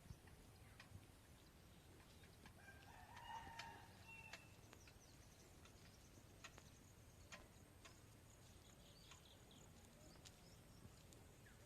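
A faint rooster crow about three seconds in, over a quiet background with a few scattered light clicks.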